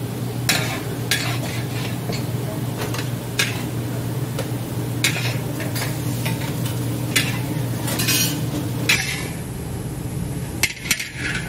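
Metal wok spatula scraping and stirring egg and chives frying in a wok, in repeated uneven strokes over a steady low hum. Near the end the spatula knocks a few times as the egg is scooped into a stainless steel tray.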